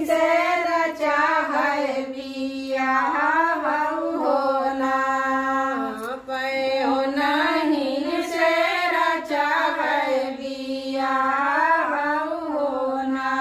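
Several women singing a kajari, a devotional folk song to Gaura Mai, together in long, held phrases.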